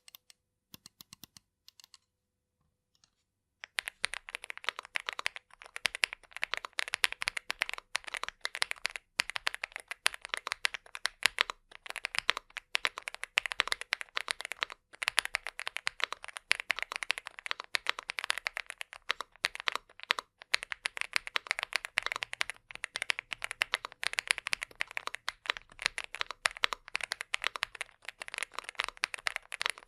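Typing on a Leobog Hi75 CNC aluminum 75% keyboard fitted with Leobog Greywood V4 linear switches. A few faint clicks come first, then about four seconds in a steady, fast stream of keystrokes begins.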